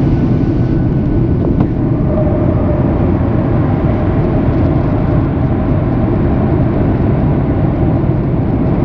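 Steady cabin noise inside a Boeing 737 in flight: an even, deep rush of jet engines and airflow, with no breaks.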